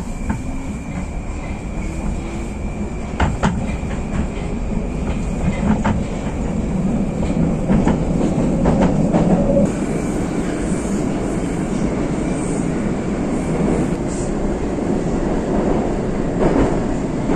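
Moskva 2020 metro train heard from inside the car as it pulls out of a station and runs into the tunnel. A rising motor whine comes at the start, then a growing rumble with sharp clacks of the wheels over the rails.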